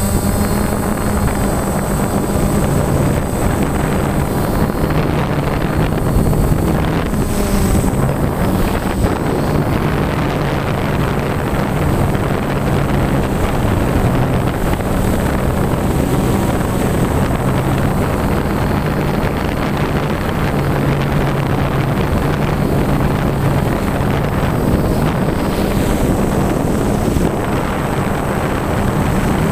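Electric motors and propellers of an FPV RC aircraft heard through its onboard camera: a steady running drone whose pitch steps up and down several times as the throttle changes, with wind rushing over the microphone and a thin high whine.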